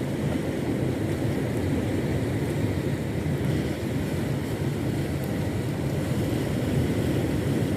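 A boat's engine running steadily, a continuous low drone with no change in pitch.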